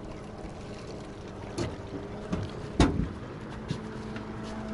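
Knocks and one heavy thump on a moored motorboat's hull, about three seconds in, as a man climbs aboard. Wind and water noise run underneath, and a steady low hum starts near the end.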